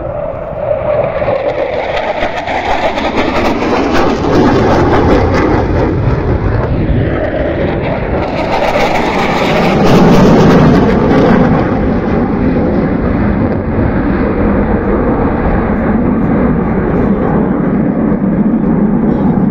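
Mixed formation of military fighter jets, F-4 Phantoms among them, passing overhead with a continuous jet-engine roar. The roar builds over the first few seconds, sweeps and phases as the jets pass over, and is loudest about ten seconds in.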